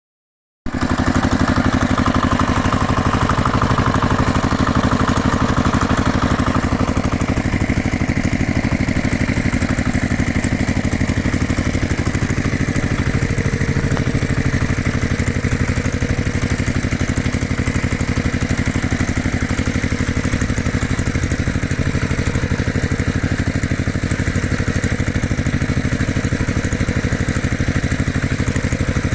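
Heavy construction machinery running steadily: an even, continuous engine drone with clatter.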